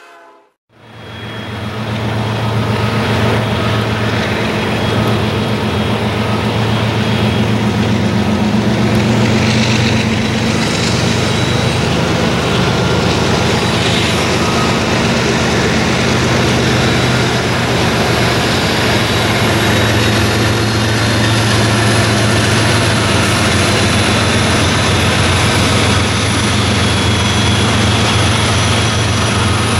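BNSF freight train's diesel locomotives running past, a steady loud engine drone with strong low tones that fades in about a second in.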